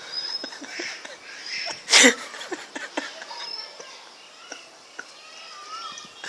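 Dogs in a fight: one loud, sharp bark about two seconds in, with quieter short dog noises around it.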